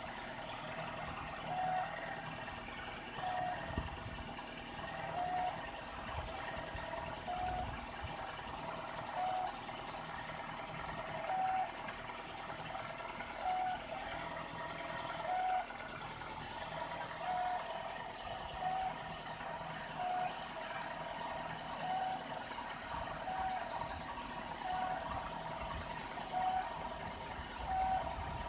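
Nissan X-Trail T31's 2.5-litre engine idling steadily, without the cold-start knock. A short high beep repeats every one and a half to two seconds.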